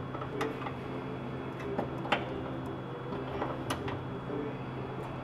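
Scattered light metallic clicks and ticks of a wrench and fittings as a brake-line connection at a brake caliper is snugged up, with the sharpest clicks about two seconds in and again near the end. A steady low hum runs underneath.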